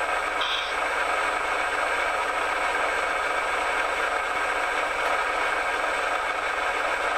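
Radio-controlled earthmoving model running, a steady whir and rattle of its small electric motors and gearing, with a brief higher-pitched note about half a second in.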